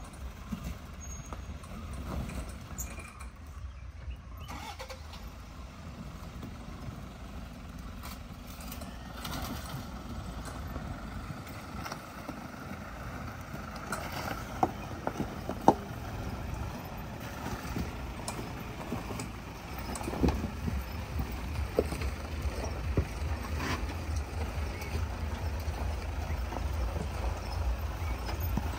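Off-road vehicle's engine running as it drives over a rough track: a steady low rumble with scattered knocks and clunks, two sharp ones about halfway through. The engine gets louder in the last third.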